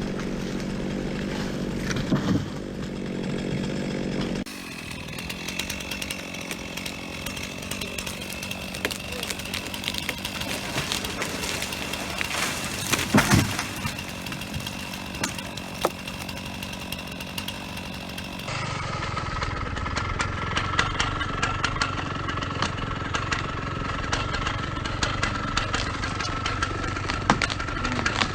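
Gas chainsaw running at high revs while cutting through a tree trunk in a felling cut, with a few sharp cracks about halfway through. The engine note is raised by sped-up audio and jumps abruptly twice at edits.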